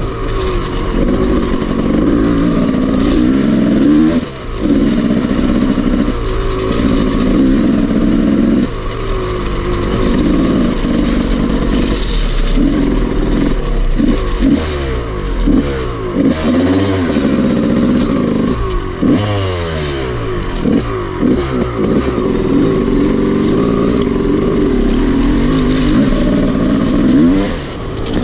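Dirt bike engine running under throttle, its pitch rising and falling as the rider rolls the throttle on and off, with brief dips in the note several times.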